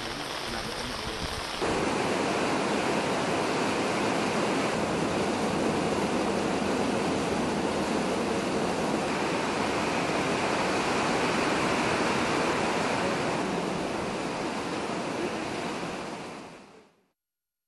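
Rain falling steadily on a waterlogged road, a continuous even hiss. It steps up in level about two seconds in and fades out near the end.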